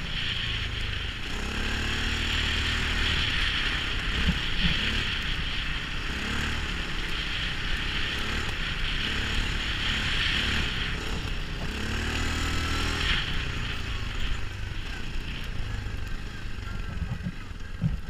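CFMoto 625 cc ATV engine running while the quad drives through snow, its pitch rising and falling with the throttle, under a steady hiss.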